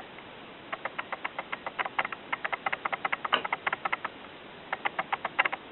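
A small kitten eating while being hand-fed, making quick wet mouth clicks several times a second, with two short pauses.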